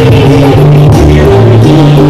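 Live band music played loud through a PA: a woman singing into a microphone over drums, keyboard and a heavy bass line.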